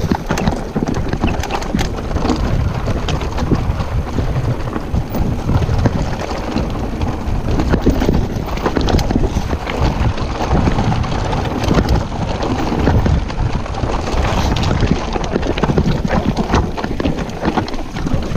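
Electric mountain bike (Trek Powerfly FS 9) riding over a loose rocky trail: its tyres crunch over stones and the bike clatters with many small knocks, over a steady low rumble.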